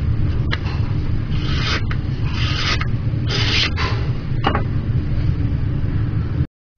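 A knife blade rasping through material in about five short strokes, each lasting roughly half a second, over a steady low rumble. Everything cuts off suddenly near the end.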